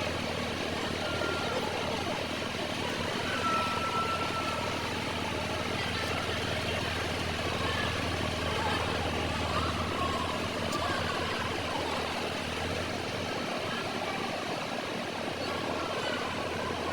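Steady low hum of a running vehicle engine under an even wash of background noise, with a few faint brief high tones.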